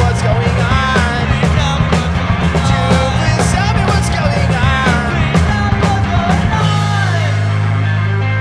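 Rock band playing with drums, bass and guitars. About two-thirds of the way through, the drums drop out and a held low chord rings on.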